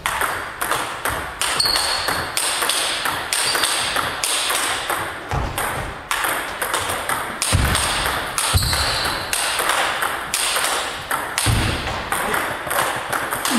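Table tennis rally: the ball struck back and forth by rubber-faced bats and bouncing on the table, a steady run of sharp clicks about two to three a second. A few low thuds come through in the middle and near the end.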